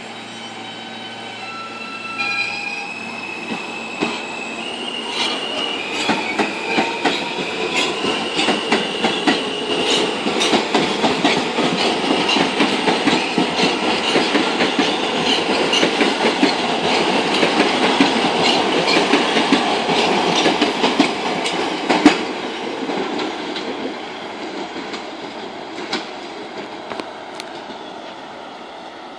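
R160 subway train pulling past. Its electric propulsion whine climbs in steps over the first several seconds, then the clickety-clack of wheels over rail joints comes faster and louder. A sharp bang about 22 seconds in is the loudest moment, and the sound fades as the last cars go by.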